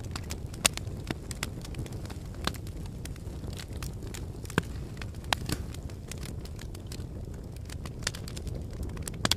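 Freshly lit teepee campfire of sticks crackling, with irregular sharp pops and snaps over a low, steady rush.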